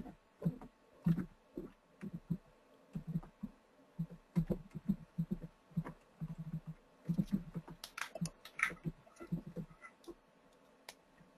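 Computer keyboard typing and clicking: irregular short key taps, several a second, heard dull and clipped through a meeting microphone.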